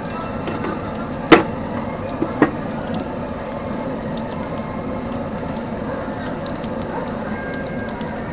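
Battered eggplant fritters (beguni) sizzling steadily in hot oil in a large wok as they deep-fry. A sharp metal clank a little over a second in and two lighter knocks about a second later, from the frying utensils against the wok.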